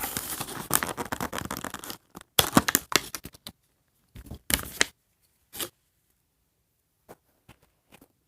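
Plastic toy packaging being torn open and crinkled by hand. The crackling is dense for the first two seconds, followed by a few short rips and then faint scattered ticks.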